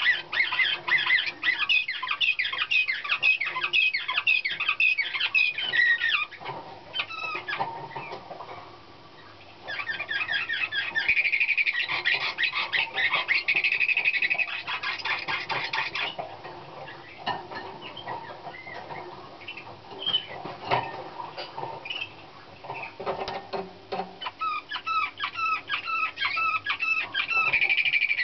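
Young Slavujar (nightingale-type) song canary singing in a cage: phrases of rapidly repeated notes and trills, with a short lull about a third of the way in, sparser single notes in the later middle, and rolling repeated phrases again near the end.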